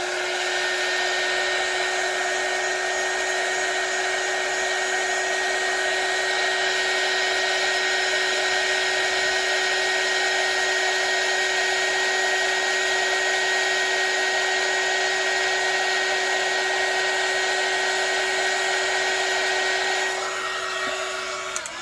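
Heat gun running steadily, a fan whine over rushing air, used to clear bubbles from freshly mixed UV resin; it winds down about twenty seconds in and switches off near the end.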